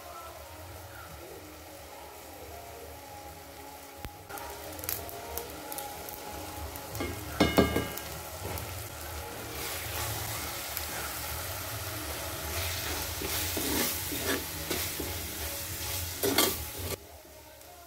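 Chopped onion and tomato sizzling in a clay pot. About seven and a half seconds in, a steel plate clanks against the pot with a short ring as spice powders are tipped in. A spatula then scrapes and stirs the masala, and the sizzle grows louder until it stops near the end.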